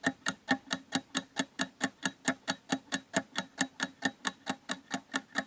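Countdown timer sound effect: a clock ticking steadily and quickly, about four to five ticks a second, marking the time left to answer.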